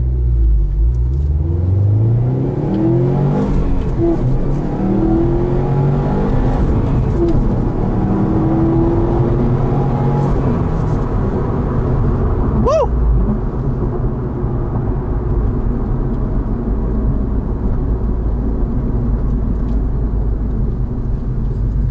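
Subaru WRX STI's turbocharged 2.5-litre flat-four, in SI-Drive Sport mode, pulling at full throttle from a standstill through a 0–60 mph run, heard from inside the cabin. The engine note rises again and again as it climbs through the gears, with short breaks at the upshifts. From about halfway through it settles into a steady low drone as the car cruises.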